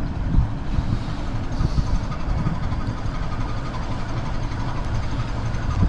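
Steady low drone of a boat's engine on the water, with a few faint steady tones above it.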